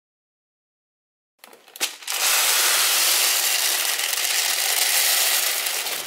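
Hundreds of small beads spilling out of a toy microwave and scattering across a hard tabletop: a dense clattering rattle that starts about two seconds in, after a click or two, and thins out near the end.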